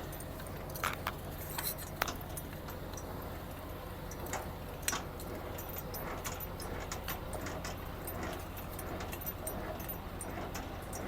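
Steady low hum of an idling semi-truck engine, with scattered light clicks and jingles from something being handled, the sharpest about two seconds in and again about five seconds in.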